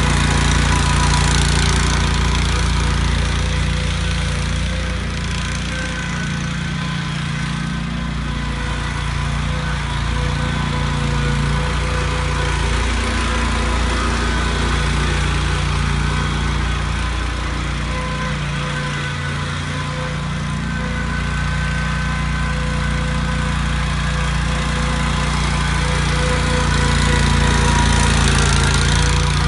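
A 1998 Grasshopper 618 mower's engine running at a steady speed. It eases off slightly through the middle and picks up again near the end.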